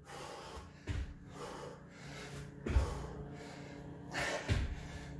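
A man breathing hard during lateral ski jumps, with three dull thuds of bare feet landing, about two seconds apart.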